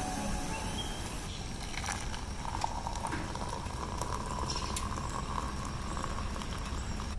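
A pot of water boils on a portable gas camp stove. About two and a half seconds in, the hot water starts pouring from the pot into a ceramic mug, a steady trickling stream that runs until near the end.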